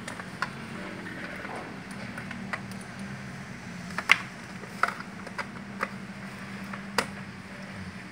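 Plastic cable connectors and HDMI-to-VGA adapters clicking and knocking as they are handled and plugged together: a string of sharp clicks, the loudest about four seconds in, over a steady low hum.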